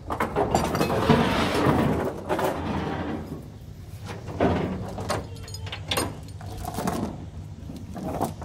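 Rattling and scraping with several sharp clanks from a trailer's tie-down hardware being unfastened at the front of a wooden flatbed deck. The loudest rattling comes in the first two seconds.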